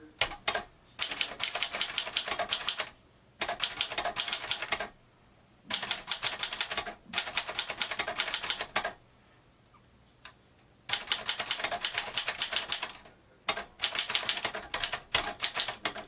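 1949 Moskva Model 2 portable manual typewriter being typed on. Its keys strike in quick runs a second or two long, with short pauses between the runs.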